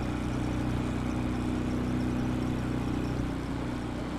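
A vehicle engine running at a steady speed, giving an even low hum.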